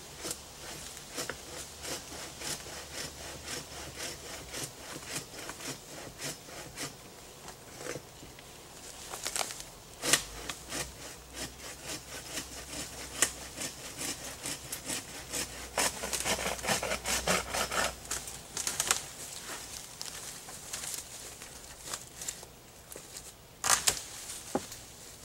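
A hand saw cutting through a storm-fallen tree in steady back-and-forth strokes, about two a second. A few sharp, louder cracks come about ten seconds in and again near the end.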